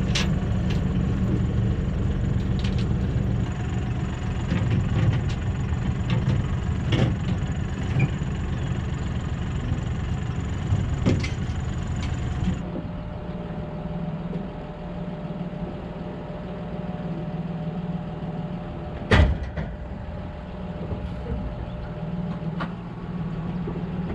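John Deere utility tractor's diesel engine running steadily, with scattered metallic knocks. About halfway it gives way abruptly to a quieter engine idling with a thin steady whine, and a single loud sharp knock comes near the end.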